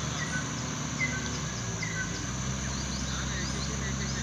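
Insects chirring steadily, with birds giving short chirps and quick falling whistles, over a low steady hum.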